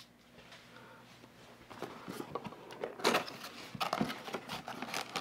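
Cardboard box and packaging being handled, with irregular rustles, scrapes and taps that start about two seconds in after a quiet moment.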